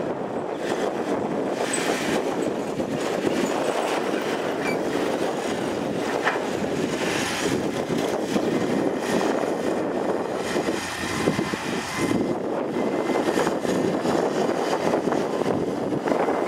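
Komatsu PC210 hydraulic excavator's diesel engine running steadily under load as it digs and swings soil, with a few brief knocks from the bucket and machine.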